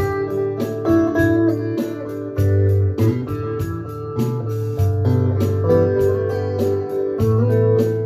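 Instrumental music: an archtop electric guitar plays sustained notes over low bass notes and a steady ticking beat, with no singing.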